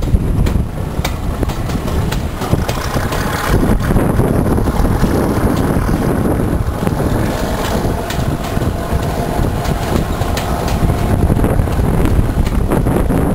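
British Rail Class 37 diesel, 37518, with its English Electric V12, working a train of Mk1 carriages at speed. It is heard from an open carriage window, with wind buffeting the microphone and a steady rumble of the train running. The carriage wheels click repeatedly over rail joints.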